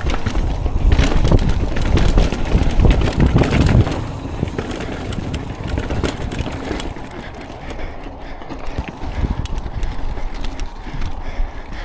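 Mountain bike riding down a rocky trail: tyres rumbling and crunching over rock, with frequent clicks and clattering knocks from the bike. It is loudest over the first four seconds and eases a little after.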